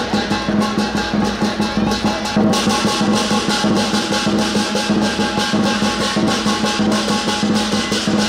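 Lion-dance percussion: a big drum and cymbals beating a fast, steady rhythm, with the cymbals louder from about two and a half seconds in.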